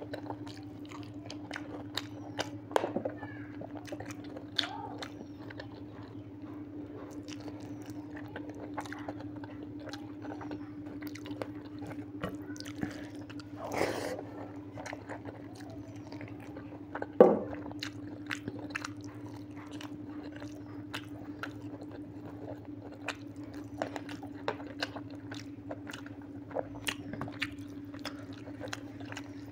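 Close-up mouth sounds of a person eating rice and mutton curry by hand: wet chewing, lip smacks and many short clicks. One sharp, louder sound about 17 seconds in, over a steady low hum.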